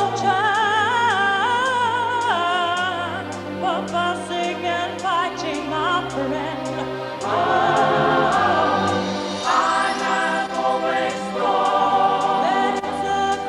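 A song: voices singing a melody over backing music, with a light, regular percussion beat.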